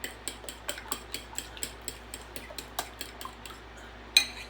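Eggs being beaten in a bowl with a whisk, which clicks against the bowl about four times a second. A louder ringing clank near the end.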